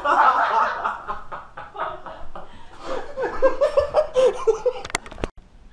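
Men laughing hard in repeated, choppy bursts, the laughter coming in a rapid rhythmic run past the middle. A few sharp clicks near the end.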